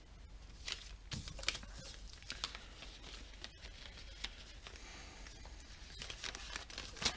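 Faint crinkling and rustling of a small clear plastic bag being handled, with scattered light clicks.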